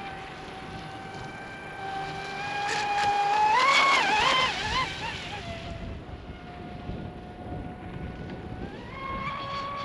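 Pro Boat Sonic Wake V2 RC speedboat's brushless motor and propeller running at speed on the water with a high-pitched whine. The whine climbs and wavers as the boat is pushed hard, loudest a few seconds in, eases back to a lower steady pitch, then rises again near the end as the throttle comes back up.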